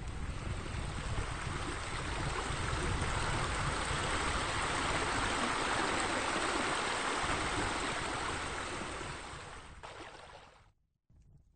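Steady running water, fading out near the end.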